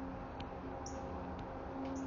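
Steady low hum with a few faint, short high chirps and light clicks, and no horn blast.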